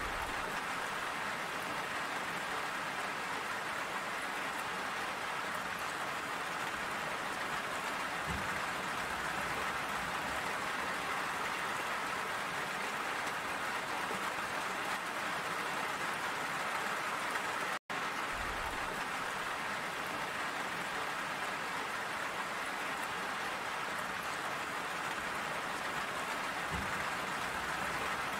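Steady rain falling, an even, unbroken hiss of drops. It cuts out for an instant about two-thirds of the way through, then carries on as before.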